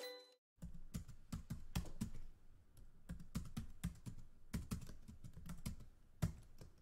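Typing sound effect: quiet, quick, irregular clicks of computer keyboard keystrokes, starting about half a second in.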